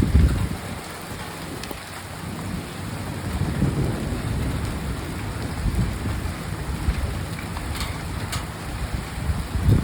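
Hailstorm: a steady hiss and patter of hail and rain, with low rumbles swelling at the start, midway and again near the end.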